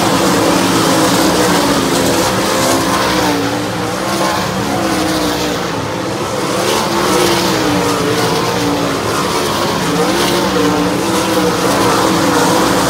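A field of 410 sprint cars racing on a dirt oval, their 410-cubic-inch methanol-burning V8s running hard together. Several engine notes overlap, each rising and falling in pitch as cars go by the fence.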